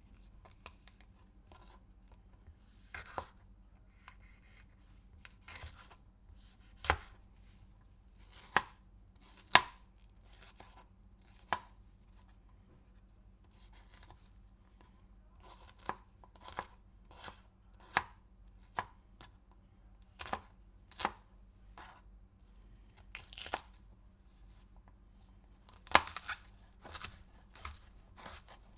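Knife slicing through a pepper on a cutting board: crisp single cuts at an uneven pace, about one a second, some much louder than others.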